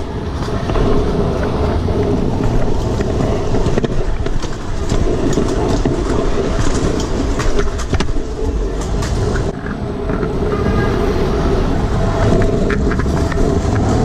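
Wind rushing over a handlebar-mounted action camera's microphone, mixed with road noise and passing city car traffic while riding fast. It holds steady throughout, with scattered short clicks and rattles from bumps in the road.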